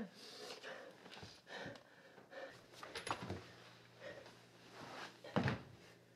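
Scuffling in a struggle between two people, with heavy breathing and a few soft thumps; the loudest thump comes about five and a half seconds in.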